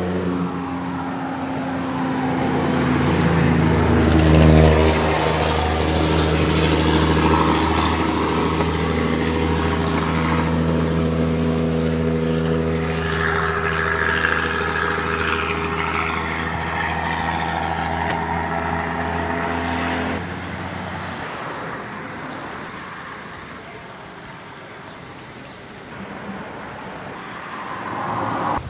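A motor vehicle's engine running steadily, swelling about four seconds in and stopping abruptly about twenty seconds in.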